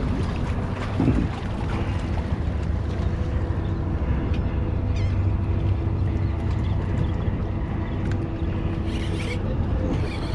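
Wind rumbling on the microphone, over a low steady drone of a boat engine out on the water.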